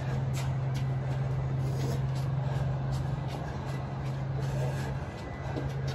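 A steady low mechanical hum, like an engine or machine running, that breaks off briefly about five seconds in. Faint knocks sound over it.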